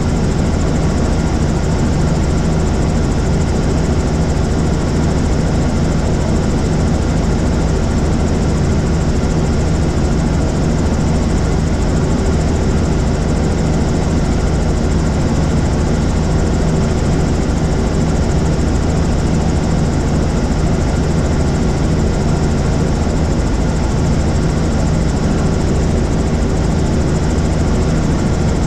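Helicopter in flight: a steady drone of engine and rotor, many low tones over a noise hiss, holding level without change.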